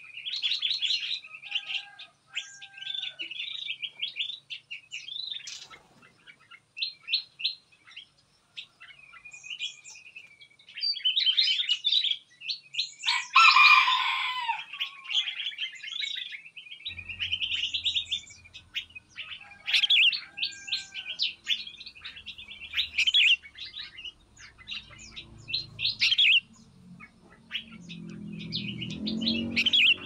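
Many small songbirds chirping and trilling over one another, with one louder call about halfway through. A low drone comes in after about 17 seconds and grows louder near the end.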